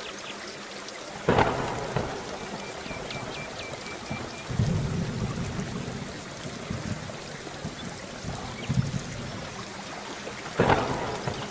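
Steady rain falling, with thunder: a sharp crack about a second in and another near the end, and lower rumbles in between. A short run of faint high chirps sounds early on.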